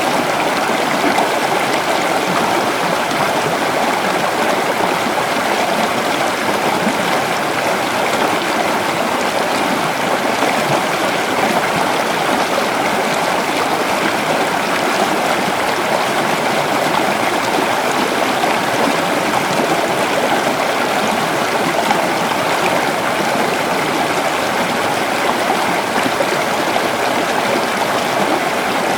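River water flowing steadily, a continuous even rush with no breaks or changes.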